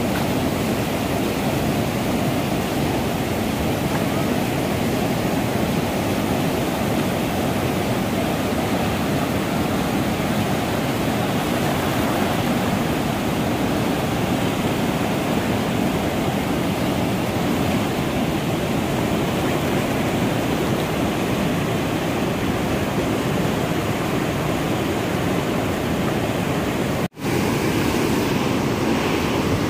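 Whitewater rapids rushing steadily over rocks, a continuous loud wash of water. Near the end the sound breaks off for an instant, then carries on as before.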